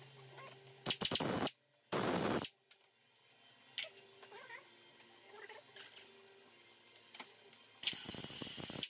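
Pneumatic air ratchet run in three short bursts, about a second in, at two seconds and again near the end, spinning out bolts on the car's front end.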